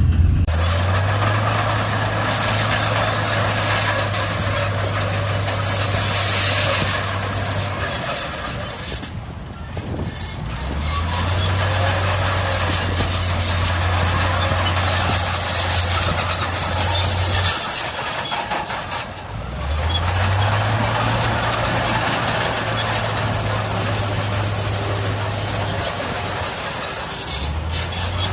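Shantui crawler bulldozer working in sand: its diesel engine revs up, holds under load for several seconds and drops back, three times over, with its steel tracks clattering and squealing throughout.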